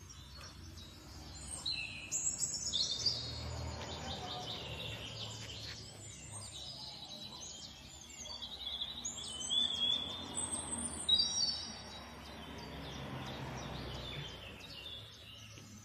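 Small birds chirping with many short, high calls, in bursts, over a low, steady background noise.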